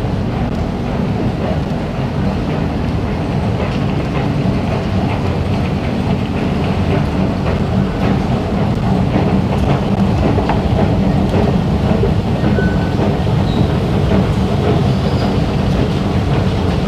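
Steady low rumble inside an underground MRT station, the mixed machinery and rail noise of the station, growing a little louder about halfway through as the escalator descends toward the platforms.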